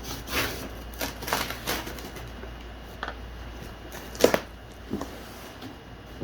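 A cardboard box being cut open with a knife: short irregular scraping and slicing strokes, most of them in the first two seconds, with handling clicks and a sharp knock a little past four seconds in.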